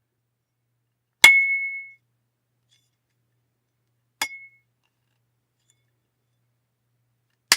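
Aluminum baseball bat struck three times, each a sharp metallic ping. The first hit is the loudest and rings on for most of a second, the second is softer with a shorter ring, and the third near the end is a brief sharp crack.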